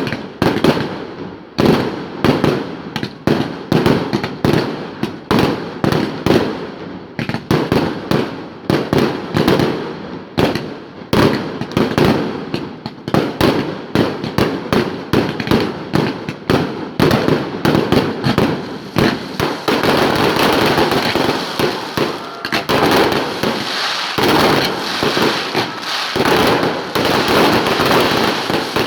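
Fireworks display: a rapid run of aerial shell bursts and bangs, several a second, thickening into a near-continuous crackling barrage for the last third.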